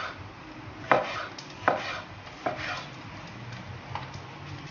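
Chef's knife chopping a cherry tomato on a wooden cutting board. Four sharp knocks of the blade hitting the board come about a second apart, and a fainter tap follows near the end.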